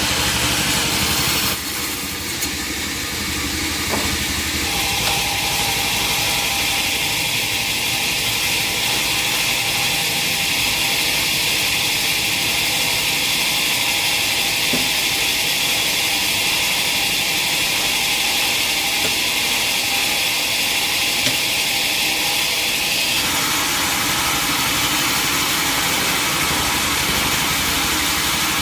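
Sawmill saw machinery running steadily while sawing teak timber. The sound shifts about a second and a half in, and a brighter, higher cutting sound runs through the middle before dropping away about 23 seconds in.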